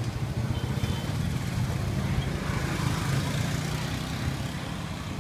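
Steady low rumble of street traffic, motor vehicles running past.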